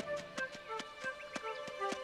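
Quiet cartoon score: short plucked notes over a run of light tapping clicks, about four or five a second.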